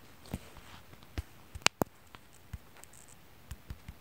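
Faint, irregular clicks and ticks over low room tone, two sharper ones a little before halfway.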